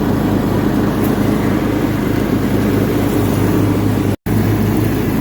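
Small gasoline lawnmower engine running steadily at a constant speed; the sound cuts out for an instant about four seconds in, then resumes.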